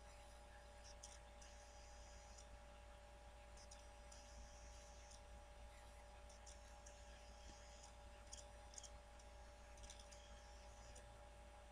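Near silence: a faint steady hum, with faint high clicks and hiss that come and go every couple of seconds.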